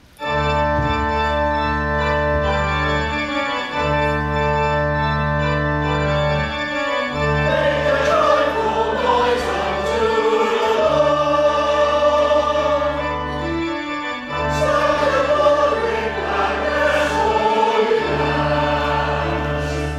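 Church pipe organ, freshly restored, playing sustained chords over a deep bass that changes every three to four seconds. A church choir joins in singing about seven seconds in.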